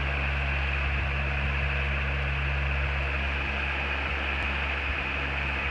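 Electric pedestal fan running steadily, a low motor hum under a constant rush of air, blowing into an open freezer to melt the frost.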